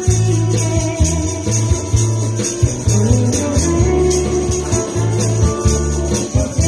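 Band music: a prominent bass line under a melody, with high ticking percussion keeping a steady beat.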